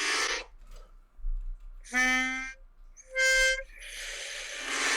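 Pitch pipe being blown: a clash of many reed notes at once as air is drawn in through all the reeds, then two single notes, a low one and a higher one, then another long cluster of all the notes together, sounding eerie and dissonant, like something out of a horror movie.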